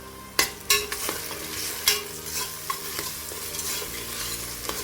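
Ginger-garlic paste and sliced onions sizzling in hot oil in a pressure cooker while a spoon stirs them, with a few sharp clicks of the spoon against the pot.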